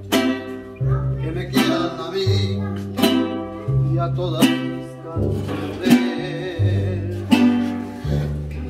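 Mariachi band playing live: vihuela and guitars strumming chords in a steady rhythm over guitarrón bass notes that change every second or so, with violins.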